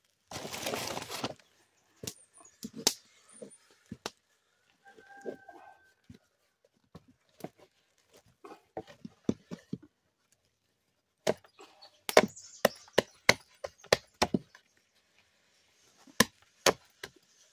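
A wooden stirring stick knocking and scraping against a metal cooking pot as flour and water are worked into fufu dough. The sharp knocks come in quick runs about two thirds of the way through and again near the end, after a brief rustle at the start.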